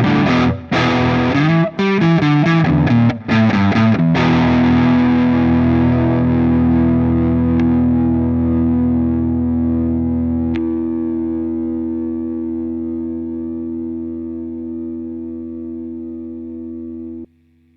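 Harley Benton SC-DLX electric guitar on its neck pickup, played through an overdriven Mesa Boogie Mark IIC+ amp model. It plays a run of quick, choppy picked notes, then one chord left to ring and slowly fade for about thirteen seconds, which is muted abruptly near the end.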